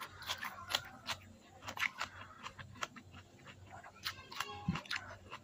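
Chewing a mouthful of stir-fried water spinach and rice: irregular mouth clicks and smacks, with a quick run of clicks about four seconds in.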